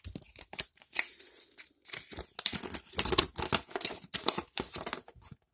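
Plastic wrapping crinkling and rustling in the hands, with irregular small clicks and taps, as a small toy figure and its charm are handled. The rustling dies away near the end.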